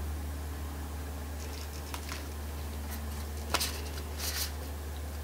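Oracle cards being handled: faint taps and rustles of cardstock as a card is moved off the top of the deck, with a sharper click about three and a half seconds in and a short swish just after. A steady low hum runs underneath.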